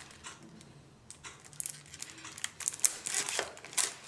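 Plastic shrink-wrap being torn and peeled off a CD case, crinkling and crackling irregularly, sparse at first and busier from about a second in.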